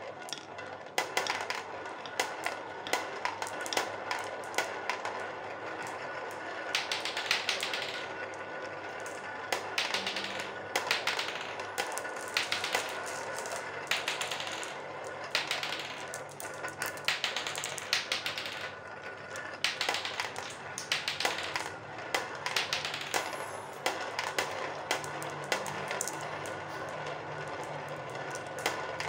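Marbles rolling and spiralling around a yellow plastic funnel bowl: a steady rolling rumble over the plastic, with many sharp clicks as marbles knock together and drop toward the centre hole.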